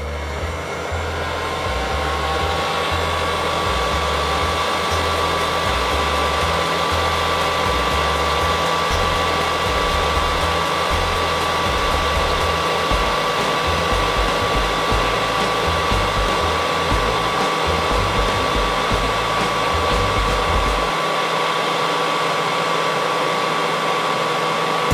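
Heat gun blowing a steady stream of hot air with a high, steady whine from its fan, melting a surface-mount chip's solder joints so the chip can be lifted off the circuit board.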